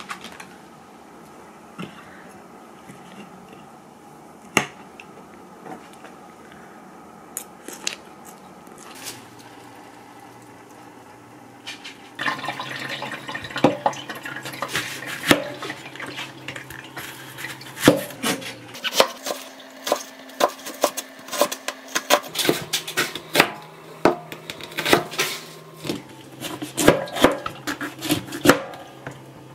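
Kitchen knife cutting an onion and then a bell pepper on a plastic cutting board: a run of sharp knocks and crunchy cuts. It starts about twelve seconds in, after a quieter stretch with only a few scattered clicks.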